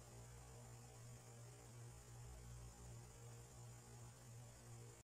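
Near silence: a faint, steady low hum with light hiss.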